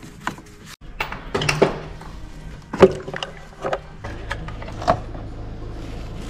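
Irregular clicks and knocks of hard plastic engine-bay parts being handled: a screwdriver working the fluid reservoir's fixings, and the reservoir and air-filter housing being unclipped and lifted out. About two-thirds of the way in, a steady low hum sets in beneath them.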